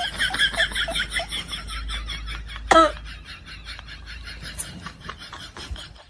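Rapid high-pitched giggling laughter, a quick run of ha-ha pulses that fades out over about three seconds. One short loud cough comes about three seconds in.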